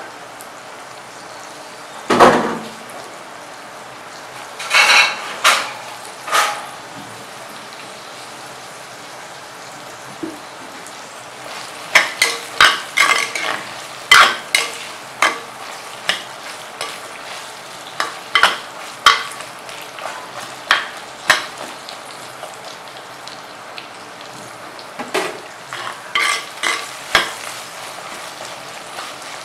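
Shallots, garlic cloves and curry leaves sizzling in oil in an earthen clay pot, with a steady hiss. A ladle stirs them, scraping and knocking against the pot in short runs of strokes several times through.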